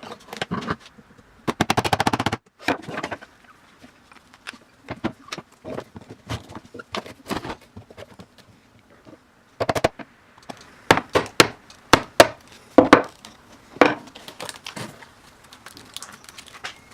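Hand tools working at a compact camera's plastic housing: sharp clicks, knocks and cracks. A quick rattling run of clicks comes about two seconds in, then scattered ticks, with the loudest knocks between about eleven and fourteen seconds in.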